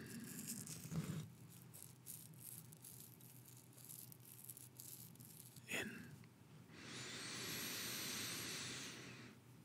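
A man's slow, long breath close to the microphone, lasting about two and a half seconds from about seven seconds in, part of a paced breathing exercise. There is a soft knock about a second in and a brief short sound near six seconds.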